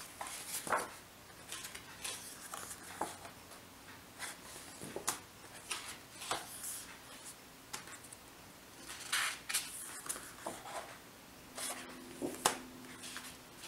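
Printed cardstock sheets in a paper stack being turned by hand: soft paper rustles and small taps, with a louder rustle of a sheet being lifted and turned about nine seconds in and again near the end.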